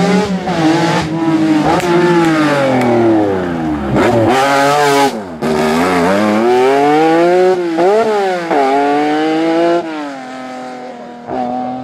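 Rally car engine revved hard under acceleration, the pitch climbing and dropping sharply again and again as the driver shifts and lifts. Near the end it settles to a lower, quieter, steadier note.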